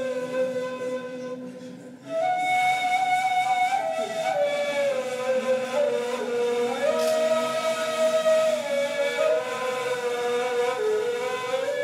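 Neys, end-blown reed flutes, playing improvised modal music: long, breathy held notes with slow slides in pitch. The sound dips briefly about two seconds in, then resumes.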